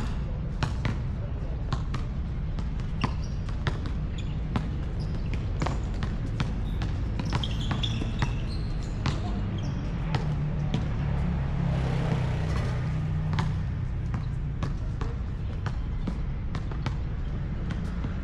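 A basketball bouncing on a hard court as it is dribbled and shot, a string of sharp, irregularly spaced thuds over a steady low rumble.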